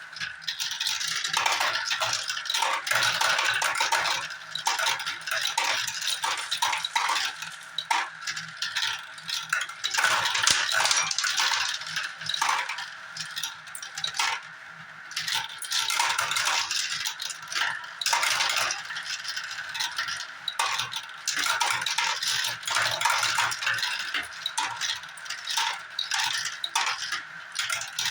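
Marbles rolling and clattering down a marble run: a steady stream of quick clicks and rattles, with a brief lull about halfway through.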